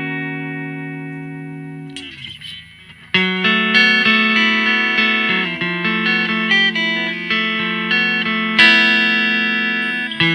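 Electric guitar played clean through a One Control Sonic Blue Twanger pedal into a Yamaha THR5 modelling amp, voiced for a Fender blackface-style tone. A chord rings out and fades, there is a short pause about two seconds in, then a phrase of picked notes and chords begins, with a strummed chord ringing near the end.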